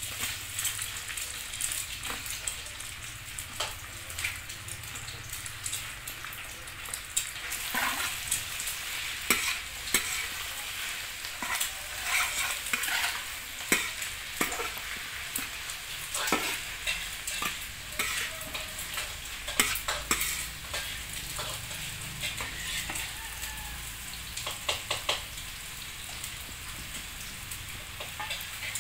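Bok choy and minced garlic sizzling in a hot metal wok while a metal spatula stirs and tosses them, scraping and clacking against the pan at irregular intervals over a steady sizzle.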